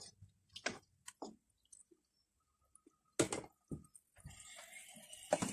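Wooden spatula stirring chicken pieces in a wok, giving a few scattered soft knocks and scrapes against the pan. Near the end a faint steady hiss of the liquid cooking in the wok comes in.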